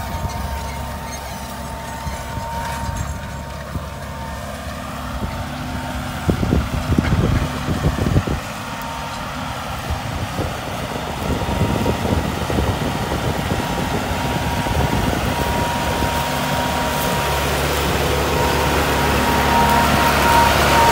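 A John Deere tractor of about 80 hp runs steadily, pulling a six-row no-till planter, with a thin steady high whine over the engine hum. A few short knocks come about six to eight seconds in, and the tractor grows louder near the end as it comes close.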